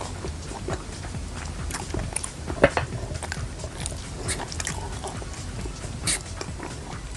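Close-miked chewing and crunching of street food, a string of small wet clicks and crackles with a sharp crunch about two and a half seconds in and another near six seconds, over a low steady hum.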